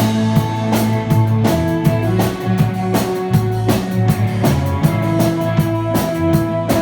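A rock band playing an instrumental passage: drum kit keeping a steady beat under electric guitar and bass.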